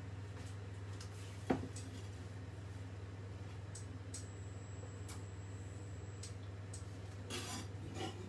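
Chef's knife chopping and tapping on a wooden chopping board, with one sharp knock about a second and a half in, then the blade scraping chopped coriander and red pepper across the board near the end, over a steady low hum.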